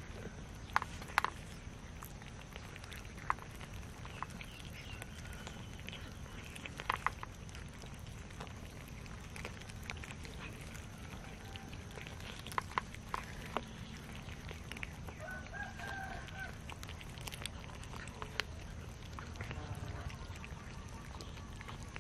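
A group of cats eating cooked rice from a metal tray: scattered sharp clicks and small chewing noises over a steady low background noise, with a brief animal call about two-thirds of the way through.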